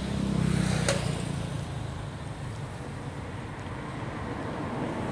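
Low engine rumble of a passing motor vehicle, loudest in the first second or so and then easing off, with a single sharp click about a second in.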